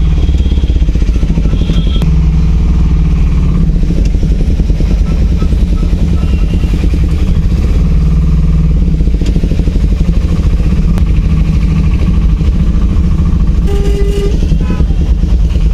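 Car engine and tyre noise heard from inside the cabin while driving on a wet road: a loud, steady low drone, with a short higher tone near the end.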